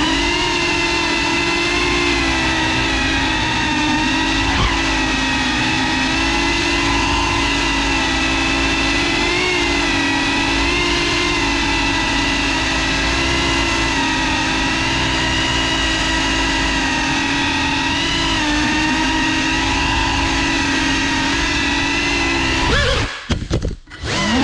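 GEPRC CineLog35 cinewhoop drone's brushless motors and ducted propellers whining steadily, the pitch wavering slightly as the throttle changes, heard from the camera on board. Near the end the whine cuts out briefly twice and comes back.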